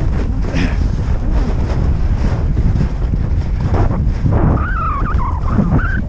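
Wind rushing over a helmet camera's microphone as a skier descends fast, with skis scraping and skidding through turns on chopped snow. A wavering high tone rises and falls over the last second and a half.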